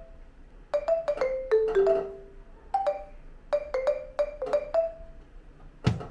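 Background music: a light melody of short struck notes that die away quickly, like mallet percussion. Near the end a louder beat with deep thumps comes in.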